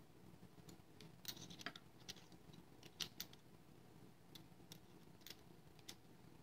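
Faint, scattered clicks and light taps of a small metal padlock and its parts being handled by hand, over a low room hum.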